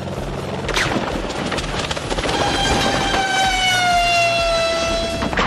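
Helicopter running low overhead with a pulsing rotor rumble. From about two seconds in, a strong whine slowly falls in pitch as the helicopter goes out of control, cut off by a loud hit near the end.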